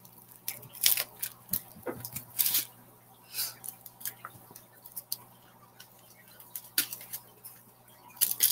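Tinfoil-and-bubble-wrap insulation crinkling and crackling as a small package is unwrapped by hand, in short irregular crackles.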